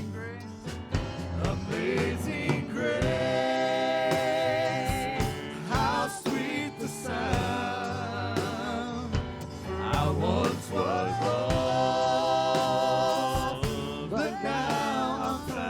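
Live gospel worship music: voices holding long, wavering sung notes over a steady instrumental backing.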